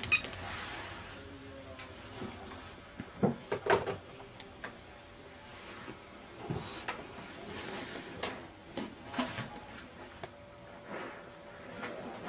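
Scattered light knocks and clicks, like things being handled or a cupboard or door being moved, with a cluster of several about three to four seconds in and a few more spread later.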